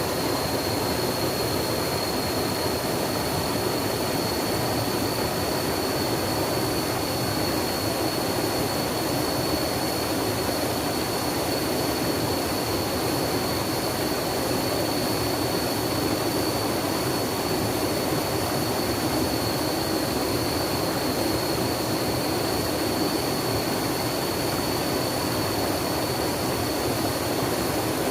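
Water rushing steadily, a constant full roar with no breaks or changes, with a thin steady high-pitched tone running alongside it.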